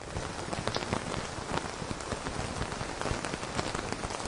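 Steady rain falling: an even hiss made of many small drops striking.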